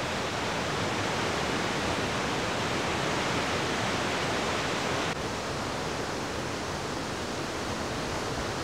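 A steady, even rushing noise of outdoor background, with no footsteps or other distinct sounds standing out; it drops slightly in level about five seconds in.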